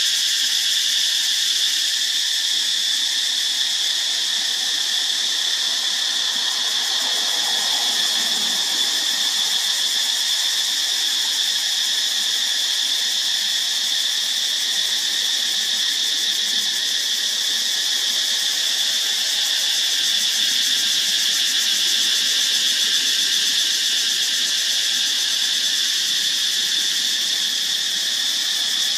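Cicadas singing in a loud, steady, high-pitched drone that never breaks.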